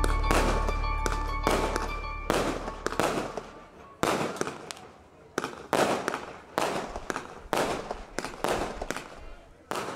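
Fireworks going off in an irregular series of sharp bangs, each trailing off, while music with a steady bass fades out over the first few seconds.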